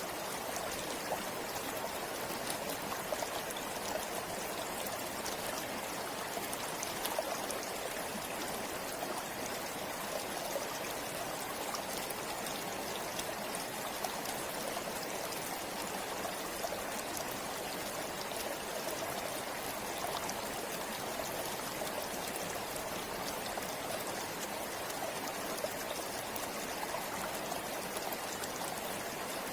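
A forest river flowing steadily, with a constant rushing of water and small splashes and trickles over it.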